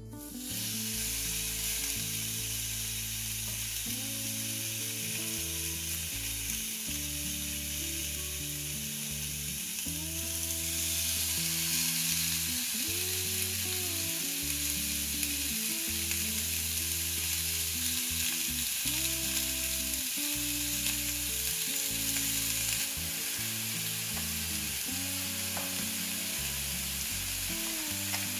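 Beef steaks sizzling on a hot cast-iron ridged grill pan, a steady frying hiss that starts as the meat goes down and gets louder about ten seconds in.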